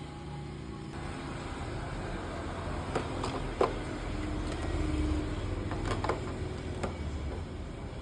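A few sharp clicks and knocks, the loudest about three and a half seconds in, over a steady low hum.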